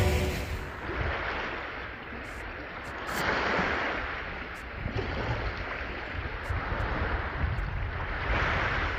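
Sea waves washing onto a rocky, pebbly shore, swelling and ebbing every few seconds, with wind rumbling on the microphone.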